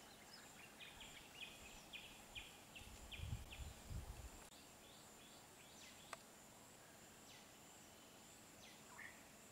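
Quiet outdoor ambience with a bird calling in short repeated high notes, about two a second at first, then more sparsely. A few low muffled thumps come about three seconds in.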